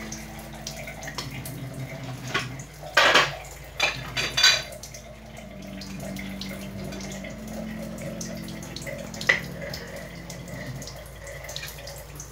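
Metal kitchenware clattering: a strainer and wok clanking and scraping a few times about three and four and a half seconds in, with a single sharp click later, over a steady low hum.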